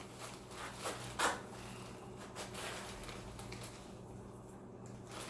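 Light kitchen handling sounds: a few soft knocks and clicks of utensils and containers, the clearest about a second in, over a steady low hum.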